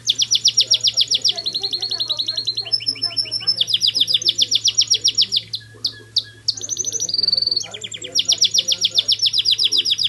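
White Timbrado canary singing: a run of rapid trills, each held for about a second before jumping to a new pitch, with a brief break a little past halfway.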